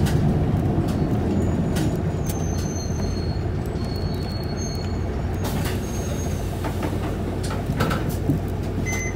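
Cabin running sound of an Isuzu Erga PKG-LV234L2 diesel city bus moving slowly and easing almost to a stop: a steady low engine hum with a few light clicks and rattles.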